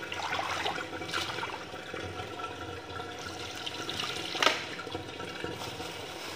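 Water running from a garden hose, pouring and splashing onto a tiled floor, with a hand rinsing something under the stream. A sharp knock about four and a half seconds in.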